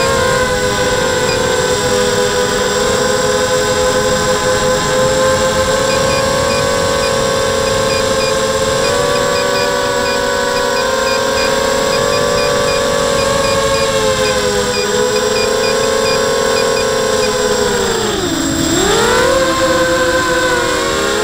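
ZMR quadcopter's brushless motors and propellers whining, picked up by the onboard camera, a steady pitched whine that wavers slightly with throttle. About 18 seconds in the pitch drops sharply and climbs straight back up as the throttle is cut and punched again.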